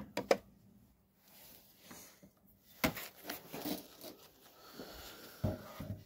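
Metal small-engine parts being handled on a bench: a few light clinks and knocks, with a sharper clink about three seconds in and another about five and a half seconds in.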